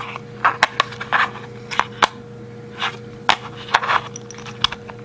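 Hands handling a plastic phone battery and wall charger: irregular sharp clicks, taps and short scrapes, over a steady low hum.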